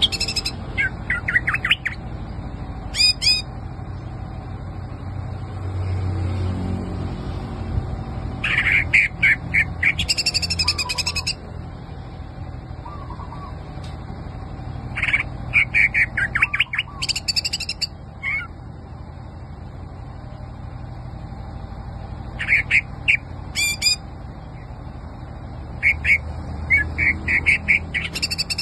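Green leafbird (cucak ijo) singing in bursts of quick, varied chirps and trilled notes. The phrases come every few seconds with short pauses between them, over a steady low background hum.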